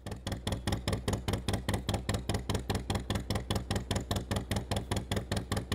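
Narrowboat diesel engine chugging at slow revs, a steady, even beat of several thumps a second over a low hum.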